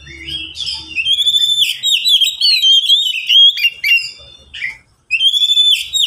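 Oriental magpie-robin singing a loud, fast run of varied whistled notes and trills. It breaks off briefly about five seconds in and starts a new phrase.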